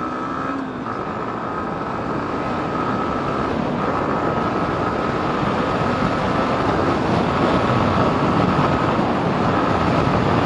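Yamaha MT-15's single-cylinder engine accelerating hard through the gears, with a brief break in its note at each upshift. Wind rushing over the microphone grows steadily louder as the speed climbs.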